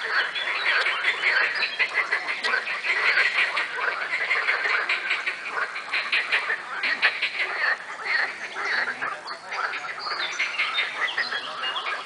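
A dense chorus of many frogs croaking at once, rapid pulsed calls overlapping without a break.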